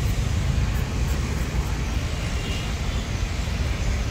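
Steady road traffic noise: a continuous low rumble of passing vehicles on the street.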